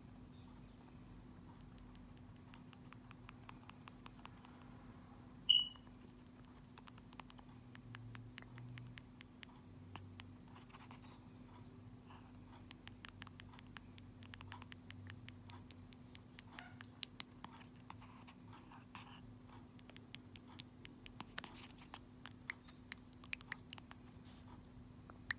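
African grey parrot's beak and tongue clicking and scraping on the plastic spout of a baby food pouch as it feeds, many faint small clicks throughout. A brief high squeak about five and a half seconds in.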